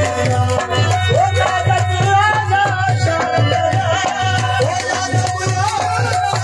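Live Sindhi Sufi folk music: a wavering melody over a steady rhythmic low beat, with long-necked lutes strummed as a drone.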